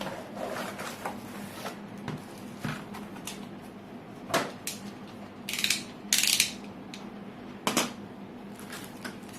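Packaging and parts of an LED ceiling light being handled during unboxing: a few sharp knocks and clicks, and two short, loud rustling bursts a little past the middle. A faint steady hum runs underneath.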